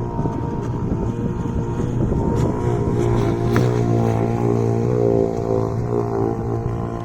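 Gas-powered RC boat engine running, its pitch rising and falling a few seconds in as the throttle changes, with a low wind rumble on the microphone.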